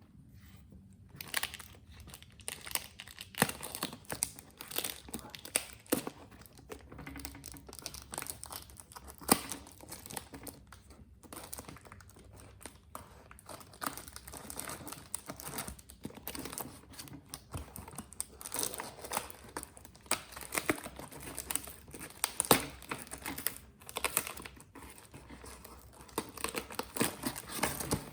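Packaging being opened and handled: crinkling and tearing with many irregular sharp clicks and taps.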